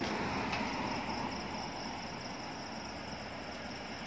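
A car driving past on the road, its tyre and engine noise coming in suddenly and slowly fading as it moves away. Under it, a steady high chirring of night insects.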